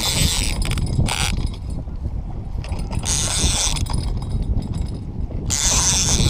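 Fishing reel working while a large carp is played on the line: short bursts of mechanical reel clicking and whirring, four times, over a steady low rumble.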